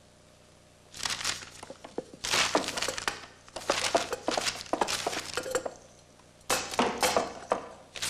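Irregular clattering and clinking in dense spells: it starts about a second in, breaks off shortly before the six-second mark, and comes back briefly near the end.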